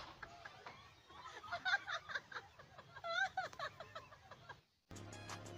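Excited voices and laughter of people filming, one voice rising sharply about three seconds in. Just before the end it cuts off, and music with a steady beat starts.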